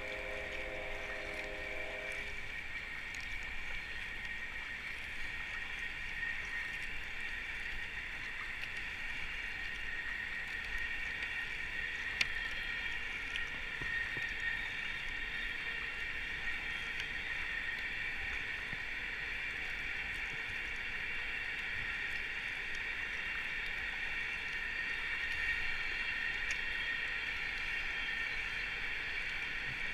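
Steady rushing of river water under a paddled kayak, growing slightly louder near the end as the white water ahead comes closer. A horn-like steady tone cuts off about two seconds in, and a single sharp click comes about twelve seconds in.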